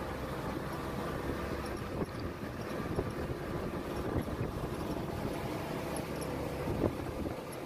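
1948 Willys CJ2A's flathead four-cylinder engine running steadily as the Jeep drives, with a few light knocks about two, three and seven seconds in.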